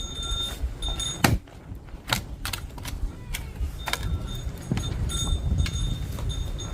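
Axe blow into an oak log about a second in, the loudest sound, followed by several lighter knocks and clatter of wood. A steady high whine comes and goes over a low rumble.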